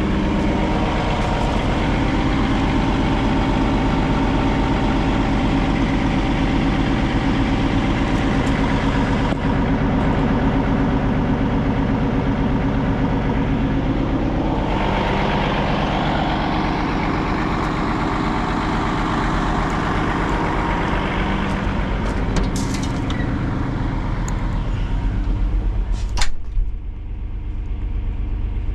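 The diesel engine of a Cat 349 EL excavator idling steadily. There is a single clunk near the end, after which the sound is more muffled.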